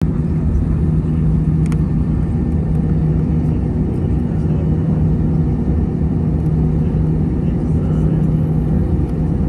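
Cabin noise inside an Airbus A321: a steady low rumble with a constant hum from the engines and air system, not rising in pitch. A single short click comes under two seconds in.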